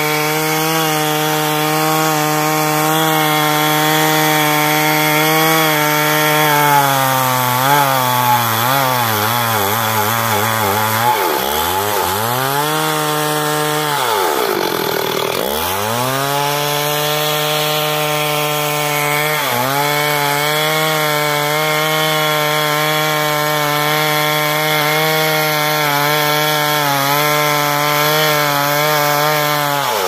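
Stihl two-stroke chainsaw running at high revs as it cuts into a large tree trunk. Its engine note wavers and twice sags sharply near the middle before picking back up, then holds steady.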